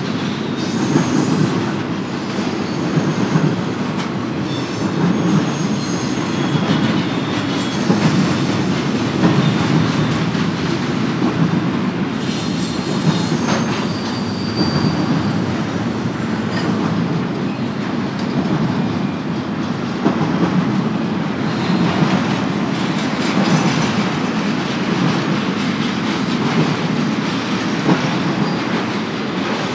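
Freight train cars rolling past: a steady rumble of steel wheels on rail, with clicks from the rail joints and several brief high-pitched wheel squeals.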